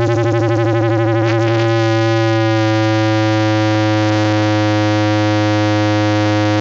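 Loud, steady electronic feedback tone from a microphone feeding a bass amplifier: a low drone with a higher ringing note over it, wavering for the first couple of seconds and then settling, with a further low note joining about two and a half seconds in.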